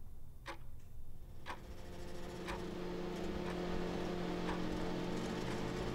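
A clock ticking about once a second. A steady hum fades in behind it from about two seconds in.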